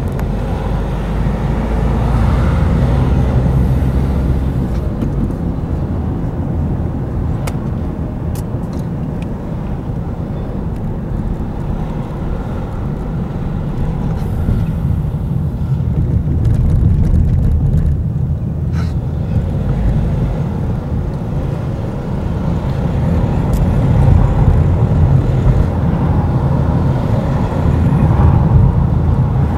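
A car driving at town speed: a steady low rumble of engine and road noise that swells and eases a little.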